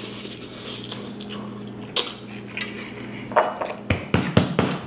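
Fork and glass clinking on a plate and countertop as the fork is set down and a drinking glass picked up: one sharp click about two seconds in, then a quick cluster of knocks and clinks near the end.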